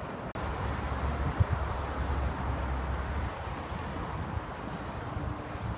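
Steady outdoor background noise, with a low rumble during the first three seconds, after a very brief dropout just after the start.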